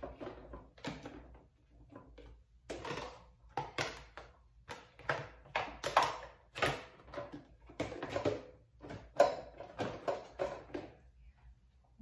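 Plastic food-storage containers being set into a dishwasher's wire upper rack, knocking and clattering against the rack and the other dishes in irregular short knocks. The loudest knocks come about halfway through and again about three-quarters through.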